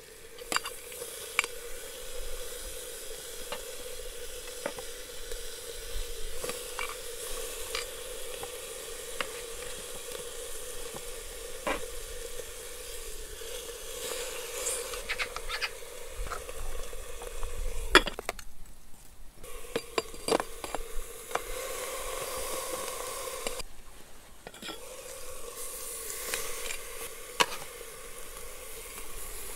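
Marinated pork sizzling inside a steaming aluminium milk can as pieces are dropped in with metal tongs to cook on the heated stones of a khorkhog. Scattered sharp clinks of the tongs against the can, the loudest about eighteen seconds in.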